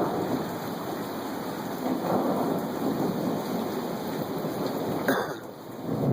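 Heavy rain pouring steadily in a severe thunderstorm, with low thunder swelling and fading under it. A short sharp knock comes about five seconds in.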